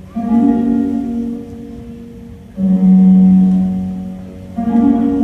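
Slow instrumental classical music: three long low notes, a new one about every two seconds, each swelling at its start and fading away.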